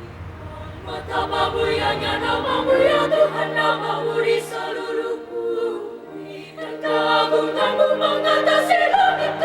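A choir singing held chords of several voices, getting louder about a second in.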